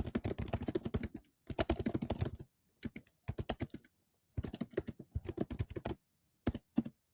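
Typing on a computer keyboard: rapid key clicks in several bursts broken by short pauses, ending with a few single keystrokes.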